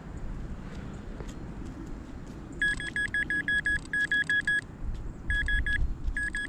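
Metal detector beeping in quick runs of short, high beeps at one steady pitch, about six a second, in several groups starting about two and a half seconds in: the sign that it is over a metal target.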